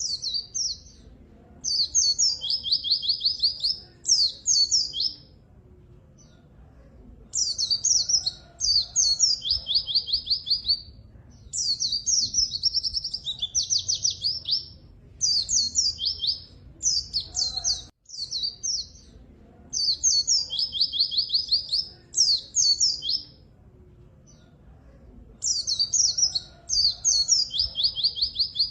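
White-eye (pleci) singing energetically in long bouts of quick, high chirping phrases broken by fast trills, with short pauses between bouts.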